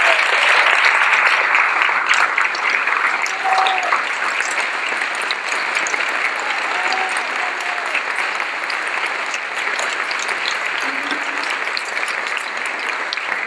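Audience applauding, loudest at the start and easing off slightly, with a few voices heard over the clapping.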